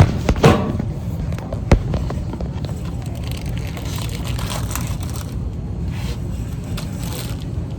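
Low rumble and rustle of handling noise on a handheld phone's microphone, with a few sharp knocks in the first two seconds.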